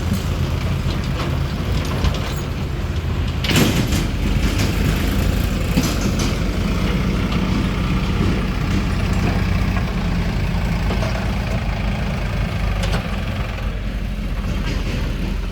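Heavy diesel engine running steadily at low revs, with a few sharp metallic knocks or clanks over it, the loudest about three and a half seconds in.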